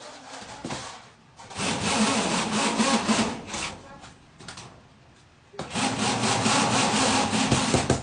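Cordless brushless hammer drill run in two bursts of a few seconds each, with a rapid hammering rattle as it bites into the work.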